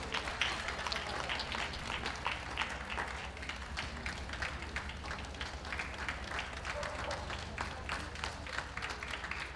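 Audience applauding steadily: a dense patter of many hand claps.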